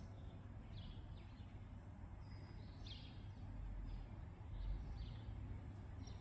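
Birds chirping in short, scattered calls, about eight over several seconds, over a faint low outdoor rumble.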